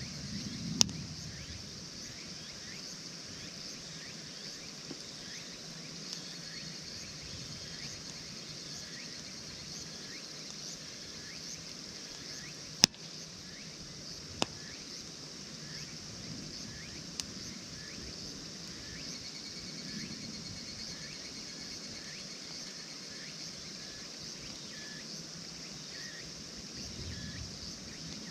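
Insects chirping in a steady, high-pitched chorus, with a few sharp pops from burning campfire wood, the loudest about thirteen seconds in.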